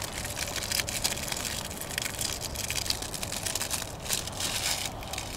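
Thin plastic film wrappers on individually wrapped slices of melting cheese crinkling and rustling as they are peeled off by hand, in quick irregular crackles, a little louder about four seconds in.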